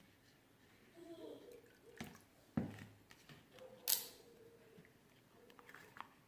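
Slime mixture being stirred in a container while borax solution is added: faint squelching and scraping with a few knocks. The loudest is a short scrape about four seconds in.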